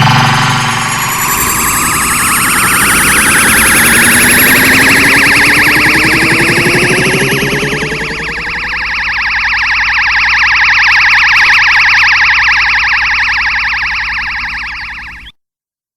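Kamehameha energy-beam sound effect: a loud charging whoosh whose pitch rises over the first few seconds, settling into a steady, rapidly pulsing electric hum. It fades a little near the end and cuts off sharply about fifteen seconds in.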